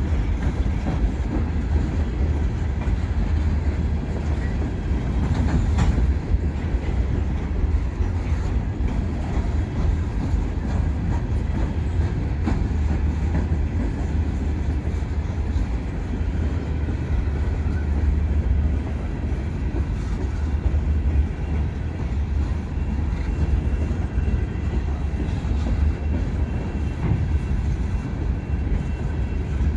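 Freight train rolling past: a steady rumble of wheels on the rails, with light clicking as the cars pass over rail joints.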